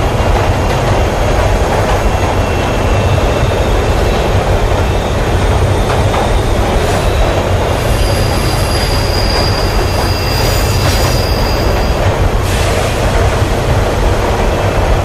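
Metro train running on the rails: a steady, loud rumble and wheel noise, with a thin high wheel squeal from about eight seconds in until about twelve seconds.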